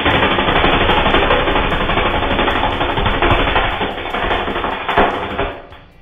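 A metallised chip bag crackling and arcing inside a running microwave as it heats and shrinks, heard slowed down: a loud, dense crackling rattle that fades away near the end.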